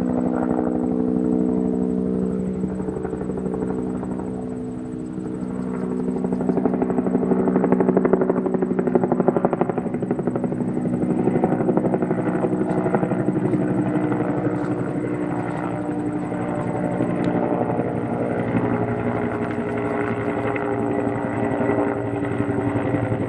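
Helicopter in flight: the fast, steady chop of the rotor blades over a constant engine drone. It eases off slightly about five seconds in, then swells to its loudest around eight to nine seconds.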